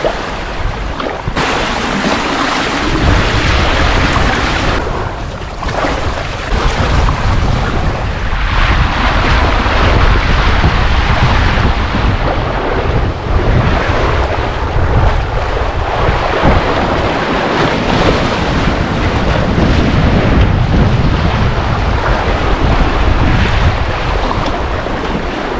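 Wind buffeting the microphone over the rush and splash of choppy sea water along the hulls of a Windrider 17 trimaran under sail. The low buffeting grows stronger about two seconds in and stays steady.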